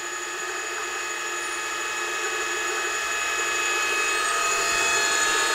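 JET J-720R radial arm drill press running its geared head at high spindle speed: a steady whine of several fixed pitches that grows slightly louder.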